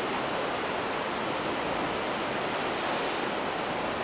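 Steady, even rushing noise of the open sea-cliff surroundings, without swells, knocks or voices.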